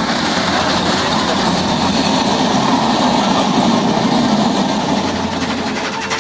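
Steam-hauled passenger train passing close by at speed: the locomotive goes by and its carriages rush past with a steady rumble of wheels on the rails, building a little over the first few seconds.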